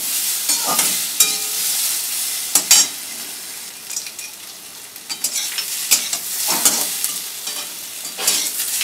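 Metal spatula stirring and scraping boiled-potato singara filling as it fries in oil in a metal kadai. A steady sizzle runs under repeated scrapes and clacks of the spatula against the pan.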